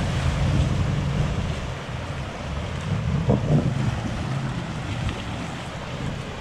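Rushing, splashing water churned up by a Range Rover Sport wading through deep floodwater, with a low rumble that eases after about two seconds, a brief louder splash about three and a half seconds in, and wind buffeting the microphone.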